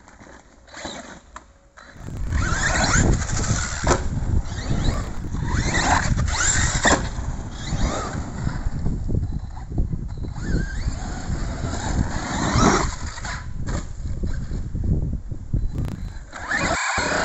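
Arrma Kraton 4S RC monster truck's brushless electric motor whining as it revs up and down over and over, with its tyres scrabbling on dirt and repeated knocks. Quieter for about the first two seconds, then loud as the truck drives hard.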